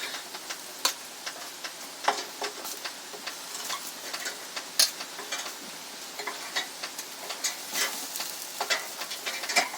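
Hot smoked chicken thighs being taken off the pit barrel cooker: a faint sizzle with scattered light clicks and taps, irregular and several per second at times.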